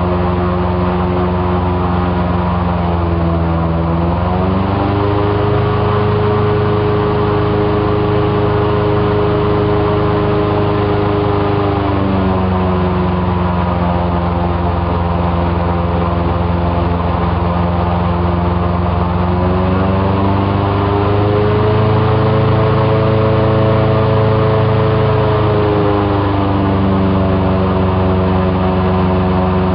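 Airboat engine and propeller running steadily under way, the engine's pitch stepping up and down several times as the throttle is changed.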